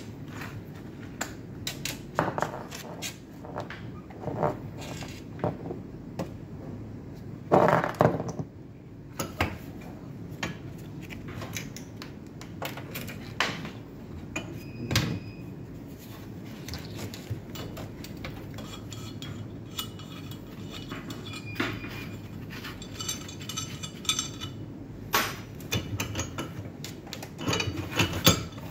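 Metal parts of an autoclave clinking, tapping and knocking as a cylindrical metal vessel with pipe fittings is handled and fitted into the machine, with a louder clatter about eight seconds in and a run of quick small metallic ticks near the end, over a steady low background hum.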